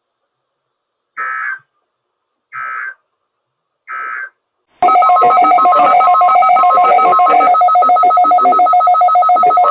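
Weather radio broadcast sending three short, identical digital data bursts about a second and a half apart, the SAME end-of-message code that closes a weekly test. About five seconds in, a loud, steady electronic alert tone starts, with a pulsing higher tone over it.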